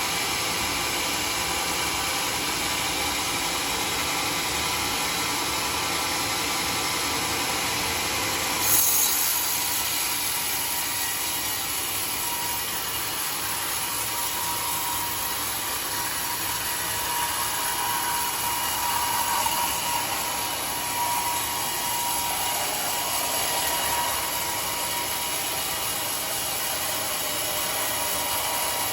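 Sawmill saw running steadily and cutting teak, with a sudden knock about nine seconds in and a wavering whine partway through as the blade works through the wood.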